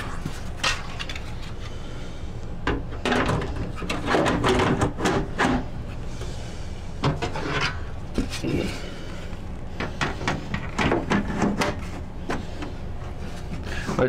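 Side panels of a Cooler Master HAF XB EVO PC case being handled and fitted back onto the case: scattered knocks, clicks and short scrapes.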